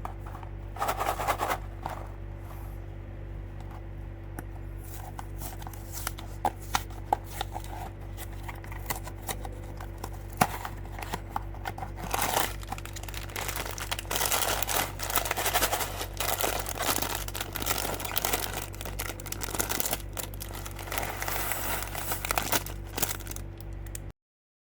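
Building block set packaging being unboxed: plastic bags crinkling and tearing and cardboard rustling, with scattered clicks and knocks of handled pieces, busier from about halfway through, over a steady low hum. Everything cuts off abruptly near the end.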